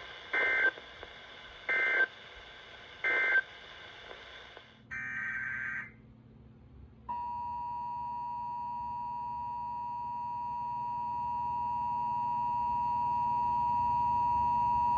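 Emergency Alert System signals: three short data-burst squawks about a second apart (the end-of-message code closing a warning), then a longer one-second data burst. From about seven seconds in comes the steady two-tone EAS attention signal, which grows louder over its last few seconds.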